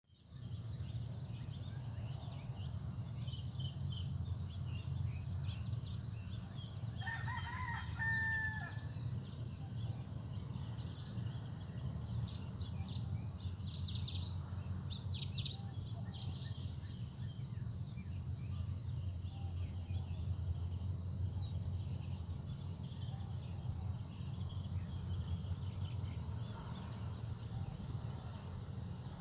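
Morning outdoor ambience with a rooster crowing once, about seven seconds in, a single call of under two seconds. A steady low hum and a steady high-pitched whine run underneath, with a few short high chirps around the middle.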